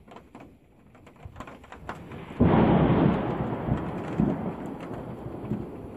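Thunderclap about two and a half seconds in: a sudden loud crack that rolls on and slowly fades.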